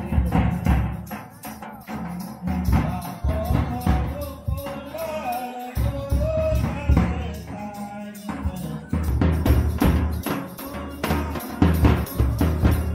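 Live folk music: a large double-headed drum beaten in a steady, driving rhythm, with a voice singing a wavering melody over it from about three to eight seconds in.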